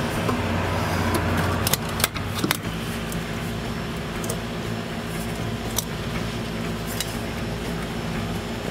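A few sharp metallic clinks of tools or parts being handled: a cluster about two seconds in, then single ones spaced out, over a steady low hum.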